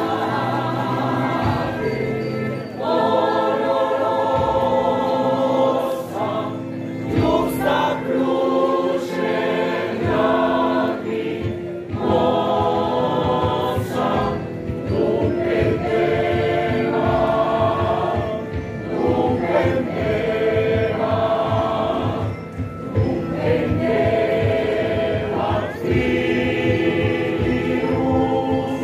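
Mixed choir of men's and women's voices singing together in long phrases, with short breaks between them.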